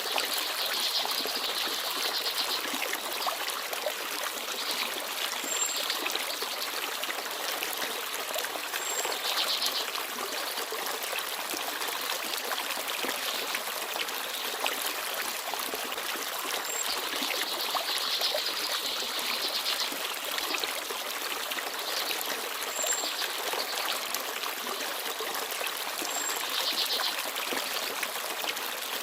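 Forest stream babbling and trickling steadily, with a few brief, high chirps of small birds now and then.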